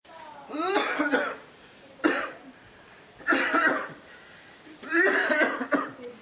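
A man coughing over and over in four separate bouts, some of them hacking with the voice sounding through. It is a persistent, chronic-sounding cough.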